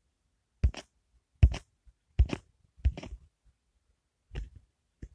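Quiet pauses broken by about five short, sharp taps or clicks, the first four coming at an even pace and one more near the end.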